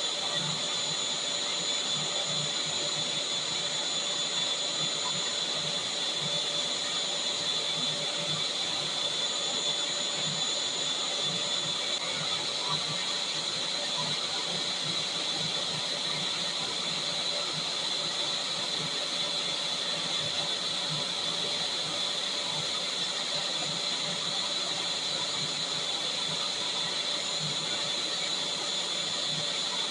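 Vacuum cleaner running steadily: a constant high motor whine over the hiss of rushing air.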